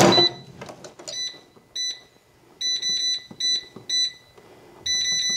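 A clunk as the Cosori air fryer's basket is pushed shut, then the fryer's touch-control panel beeping as its buttons are pressed to set the temperature and time. The beeps are short, clean electronic tones at irregular spacing, with a quick run of them near the end.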